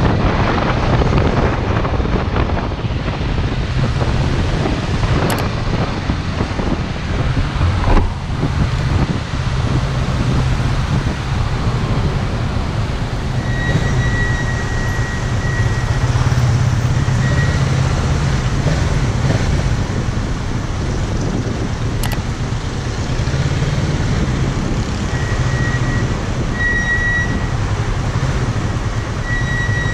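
Kawasaki Z650's parallel-twin engine running steadily at low revs as the bike crawls and waits in slow city traffic, with the noise of surrounding cars. A faint high whine comes and goes in the second half.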